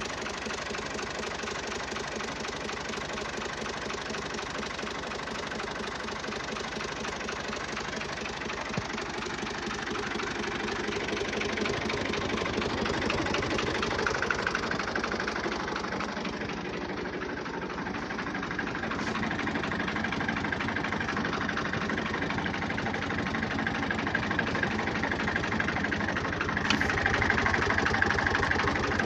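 Fiat Al-Ghazi tractor's diesel engine idling steadily, growing louder partway through and again near the end.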